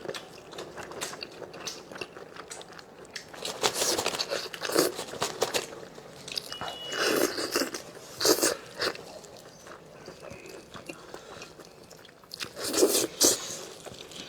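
Close-up eating sounds of a person biting and chewing braised spicy lamb chops, with crunchy crackling bites that come in clusters a few seconds apart and quieter wet chewing in between; the loudest bites come near the end.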